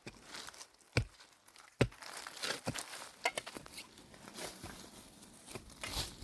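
Rustling and crinkling handling noise, with two sharp knocks about one and two seconds in.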